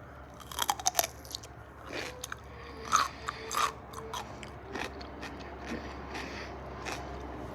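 Crisp Grillo's pickle spear being bitten and chewed close to the microphone: sharp, irregular crunches, a quick cluster about a second in, then slower crunches as the chewing goes on.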